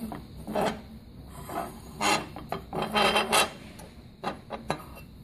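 A painted aluminum phone holder being handled and scraped against a tabletop: irregular bursts of rubbing and scraping, loudest about two to three and a half seconds in.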